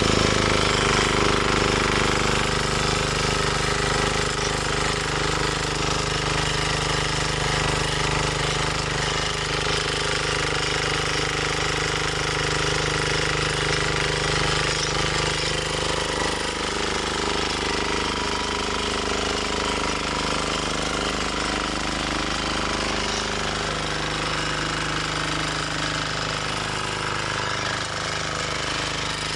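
Bolat Atom 7 HP single-cylinder diesel rotary tiller running steadily under load, its engine knocking as the tines churn through never-ploughed ground.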